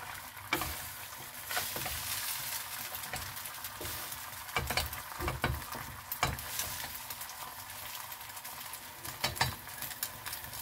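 Beaten eggs sizzling in butter in a nonstick frying pan, with a wooden spatula scraping and dragging the setting edges toward the centre in repeated short strokes.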